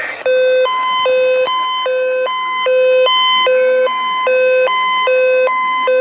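Emergency alert receiver's alarm: a loud, buzzy electronic tone switching back and forth between a low and a high pitch about every 0.4 s, starting a moment in and cutting off the radio talk.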